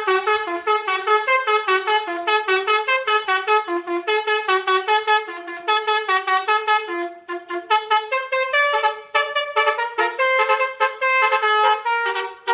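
Telolet Basuri musical bus horn playing a fast tune of short horn notes, several notes a second, with a brief break about seven seconds in.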